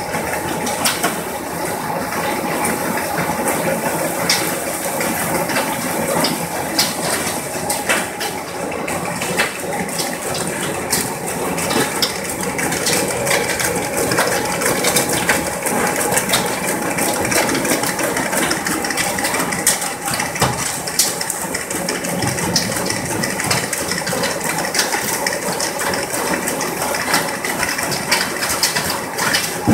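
Crawfish sorting machine running: a steady rush of water and machinery, with frequent sharp clicks and clatters as live crawfish hit the metal grading table and bins.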